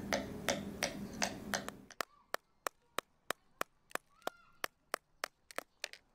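Repeated sharp taps on an ostrich eggshell, about three a second, chipping through the hard outer shell.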